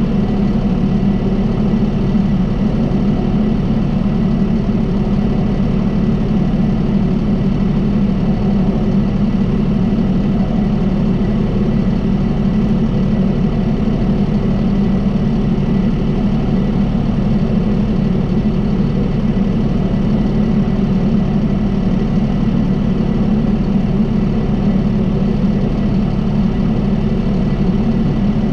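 John Deere 5075E tractor's diesel engine running steadily while powering a round baler, an even drone with no change in speed.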